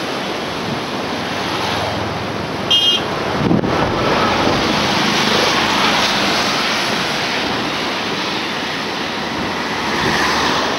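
Steady rushing noise of the Satluj in flood, fast muddy water, with wind buffeting the microphone. A brief high beep comes about three seconds in; after a break just past that, road noise from the bridge joins the rush, and a car passes near the end.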